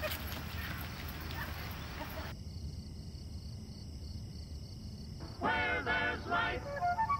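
Outdoor street noise with quick running footsteps, cutting off sharply after about two seconds to a low steady hum. About five seconds in, a voice starts, and music with a melody begins at the very end.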